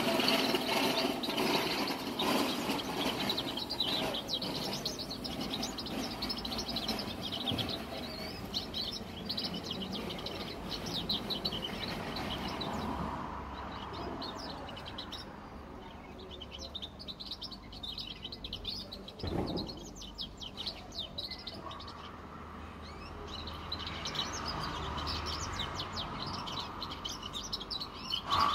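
Young cagebird being schooled in goldfinch song, singing a fast twittering goldfinch-style warble of quick chirps and short pitch sweeps. A low hum runs under the first few seconds.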